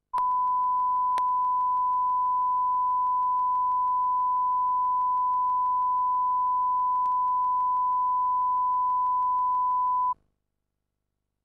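A steady 1 kHz sine test tone held for about ten seconds and then cut off abruptly: the line-up tone recorded at the head of a broadcast commercial tape.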